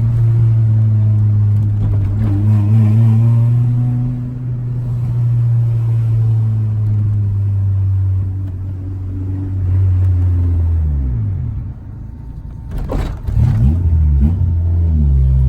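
Car engine running steadily, its note dropping about ten seconds in, then a few quick revs near the end.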